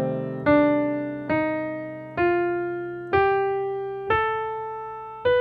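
Piano playing the C melodic minor scale upward one note at a time, about a note a second, each note left to ring and fade: C, D, E-flat, F, G, then the raised sixth and seventh, A and B natural.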